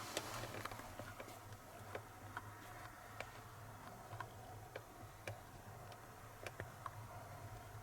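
Faint, irregular light clicks and taps over a steady low hum.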